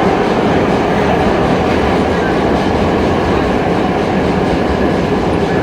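R32 subway train running along the track, a loud steady rumble of wheels and car body heard from inside the car.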